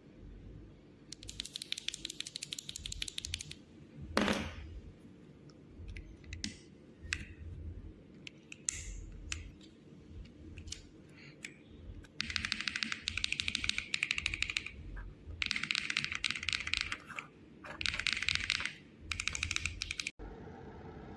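Typing on a mechanical keyboard fitted with MMD Princess Lavender linear switches: fast runs of keystrokes with scattered single presses in between. One louder knock comes about four seconds in.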